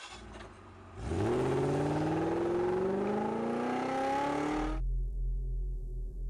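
Car engine accelerating, its pitch rising steadily for about four seconds before cutting off sharply, leaving a low hum.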